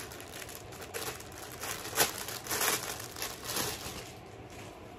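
Thin plastic packaging bag crinkling and rustling as a garment is pulled out of it, with one sharp crackle about two seconds in. It dies down after about four seconds.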